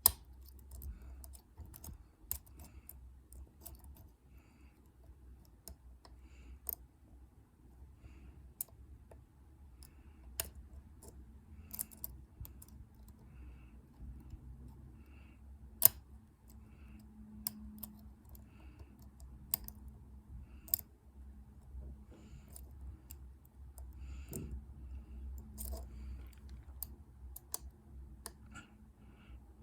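Irregular small metallic clicks and ticks of a pick working the pins of a dimple-key Euro cylinder lock under a tension wrench, with a few sharper clicks, the loudest about 16 seconds in.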